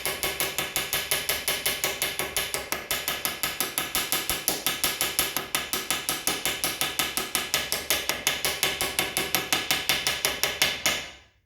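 Hammer rapidly tapping the head of a 3 mm mild steel rivet, about six light, ringing strikes a second, peening it over from the edge towards the middle; the tapping stops suddenly near the end.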